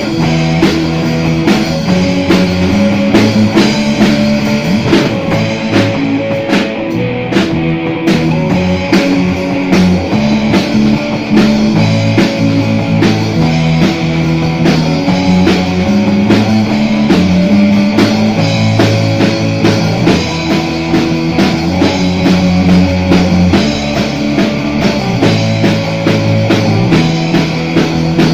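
Rock band playing an instrumental passage: a Fender Jazz Bass carries a moving bass line, with a Yamaha drum kit keeping a steady beat and an Aria Pro electric guitar playing over it.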